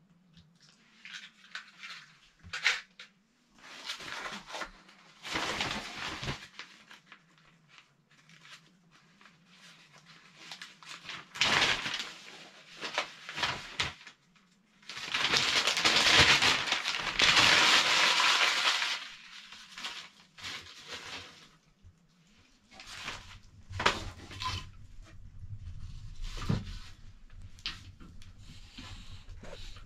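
Newspaper being crumpled and torn by hand while lighting a cast-iron wood-burning stove, loudest in one long crinkling spell about halfway through. Scattered knocks and clicks from the stove door and kindling, and near the end small crackles over a low rumble as the fire takes.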